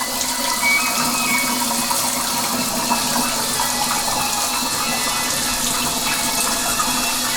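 Shower water running, a steady even spray.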